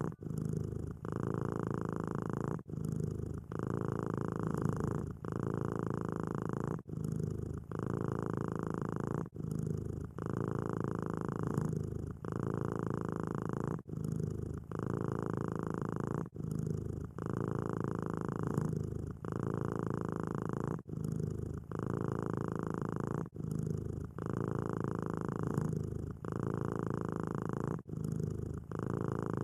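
Kitten purring steadily, in an even cycle that swells and dips about every two seconds.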